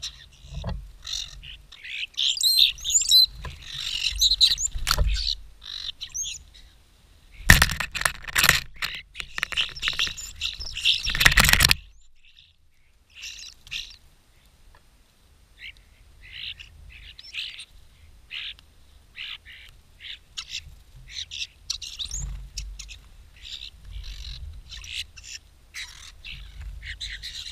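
European starlings chattering at a suet feeder: a string of short squeaky notes, clicks and gliding whistles. From about a third of the way in there is a loud rush of flapping wings for roughly four seconds.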